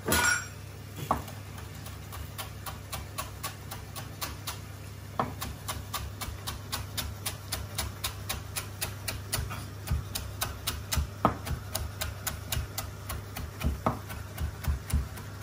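Chef's knife chopping fresh parsley and coriander on a wooden cutting board: the blade taps the board, a few scattered taps at first, then a steady run of about three a second.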